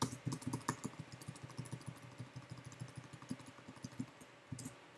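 Typing on a computer keyboard: a quick, uneven run of light key clicks, thinning out near the end.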